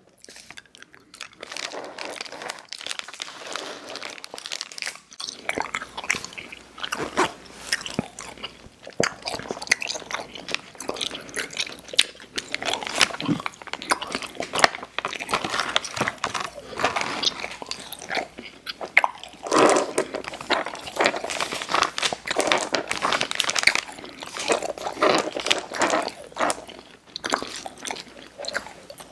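Close-miked mouth sounds of chewing Airheads Xtremes sour chewy candy: wet, sticky chewing with crunchy bites and mouth clicks, going on steadily after a brief pause at the start.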